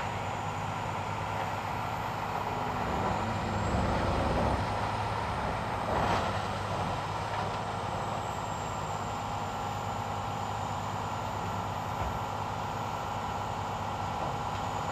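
A machine tool running steadily with a low hum and a faint high whine, with a single knock about six seconds in.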